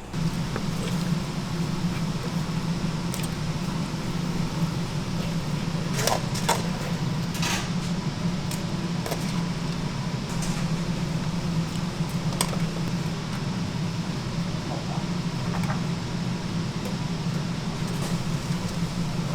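Steady low mechanical hum, like a fan or motor running, with a few sharp metallic clinks about six, seven and twelve seconds in.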